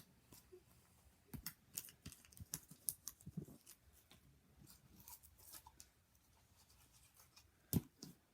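Slime being worked and scraped out of a small plastic container by hand: irregular sticky clicks and pops, with one louder knock near the end.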